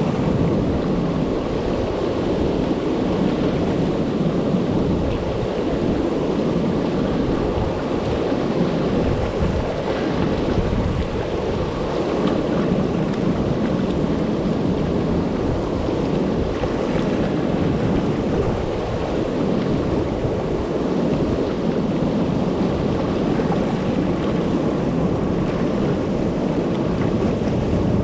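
River water pouring over a low dam and churning through the rapids below it, a steady, low rushing that does not let up.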